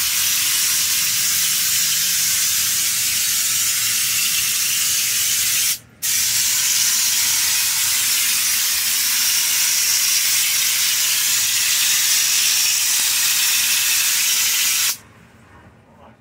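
Compressed-air Raptor bed-liner spray gun hissing steadily as it sprays liner. It breaks off for a moment about six seconds in, starts again, then cuts off suddenly near the end.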